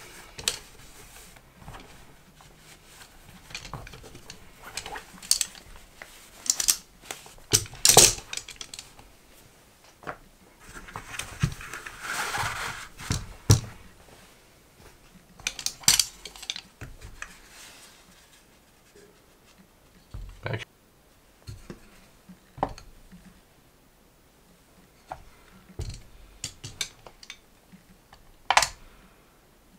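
Folding laptop stands being handled and set down on a wooden table: scattered clicks, knocks and clacks of metal and plastic parts, with a brief rustle about twelve seconds in.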